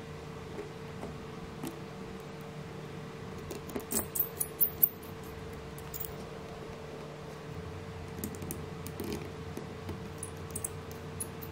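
Small clicks and rattles of 3D-printed plastic parts and metal screws being handled and fitted together, with a quick run of sharper clicks about four seconds in. Lighter ticks and scrapes follow as a small screwdriver works a screw into the potentiometer mount. A steady faint hum runs underneath.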